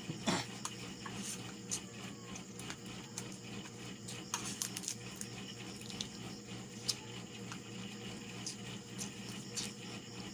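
Eating at a table: scattered small clicks and taps of food, bones and utensils being handled, over a steady low hum.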